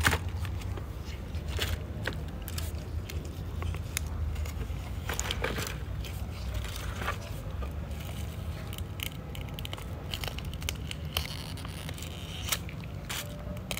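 Dry, dead succulent leaves crackling and tearing as they are stripped from the plant by hand, in irregular small clicks and rustles.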